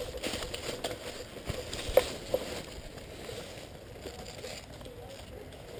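Rustling and crackling of a player's gear and dry undergrowth as he moves, with scattered sharp clicks, the loudest about two seconds in.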